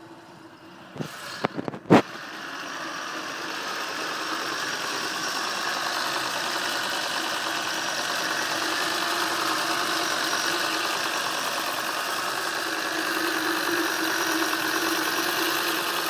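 Citroën XM engine idling steadily, growing louder over the first few seconds. A few sharp clicks and a louder knock come just before it, about a second or two in.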